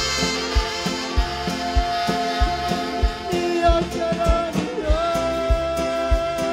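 Live gospel band music: a man singing into a microphone over a steady kick-drum beat, about one thump every 0.6 s, with long held notes on top.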